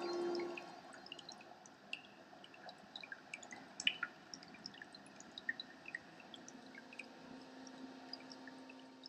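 Ambient soundtrack of sparse, irregular drop-like plinks over a faint hiss. A low steady tone comes in about six and a half seconds in.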